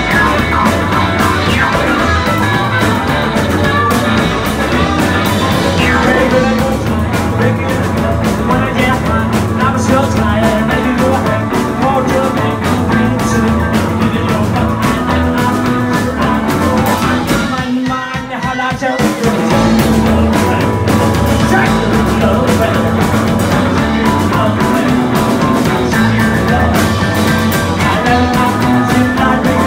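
Live rock and roll band playing loud: electric guitar and keyboard, with a man singing. About two-thirds of the way through the band stops for a moment, then comes back in.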